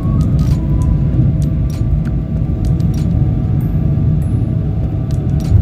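Airliner cabin rumble as the plane rolls along the ground at the airport, a loud steady low rumble with light rattling of cabin fittings throughout.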